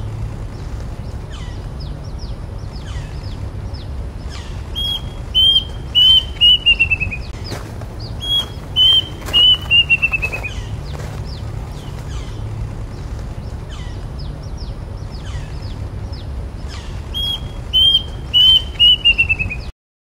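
Plaintive cuckoo singing three phrases, each a run of whistled notes that step down in pitch and quicken toward the end. Faint chirps of other birds sound throughout over a steady low background noise, and the sound cuts off suddenly near the end.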